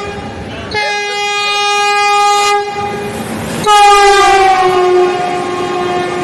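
Locomotive horn sounding two long blasts over the noise of a moving train. The second blast is louder and sags in pitch as it is held.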